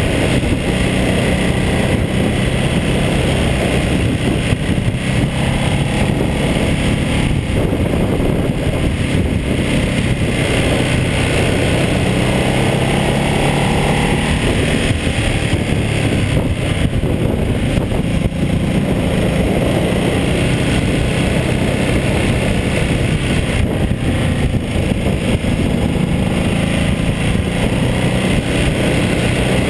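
Ducati Multistrada 1200S's L-twin engine running steadily at cruising speed through the bends, heard from a GoPro mounted on the bike, with wind rushing over the camera.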